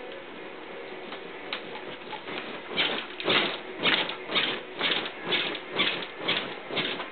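Wooden baby crib rattling and creaking in a steady rhythm, about two knocks a second, as a toddler bounces while gripping the top rail; it starts about three seconds in.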